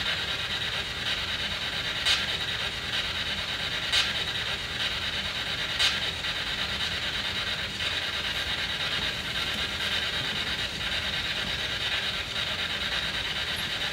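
SB7 spirit box sweeping through radio stations: a steady hiss of static with faint rapid ticking and three sharp clicks about two seconds apart in the first half.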